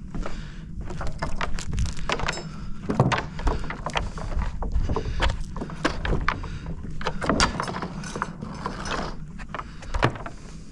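Irregular knocks and clicks of footsteps on loose wooden roof boards, over a low steady rumble.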